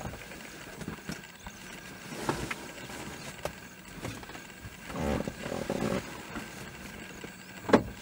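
Steady outdoor background noise with scattered small clicks, a louder low rumble about five seconds in lasting about a second, and a single sharp knock near the end.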